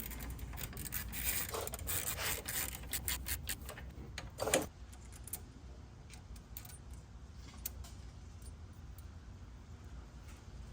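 Small metal parts and hand tools clinking and rattling as they are handled, with a quick run of sharp clicks for the first four and a half seconds. After that come only a few scattered clicks.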